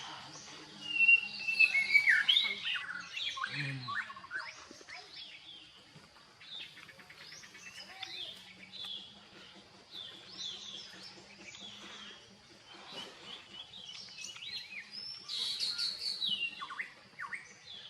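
Birds chirping, a busy run of short calls and quick pitch sweeps, loudest about a second in and again late on.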